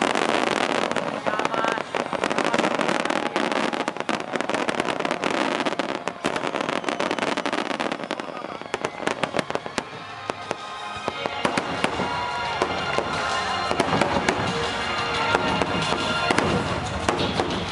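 Aerial firework shells bursting in quick succession with dense crackling. The bangs thin out after about ten seconds as music with held notes comes to the fore alongside them.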